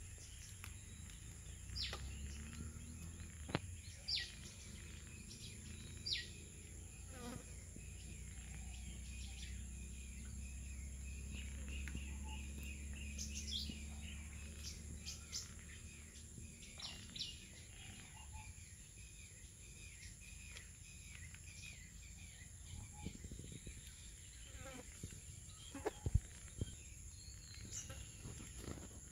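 Outdoor garden ambience: a steady high-pitched insect drone, with short falling bird chirps scattered throughout over a low background rumble.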